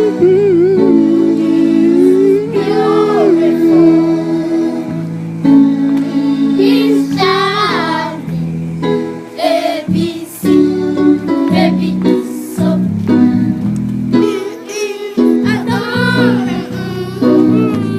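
Background music: a song with a sung melody over sustained instrumental chords.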